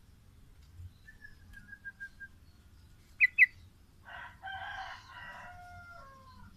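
Male yellow-vented bulbul (trucukan) calling: a faint thin trill, then two loud, sharp, very short notes about three seconds in. A rooster crows in the second half, a drawn-out call that falls away at the end.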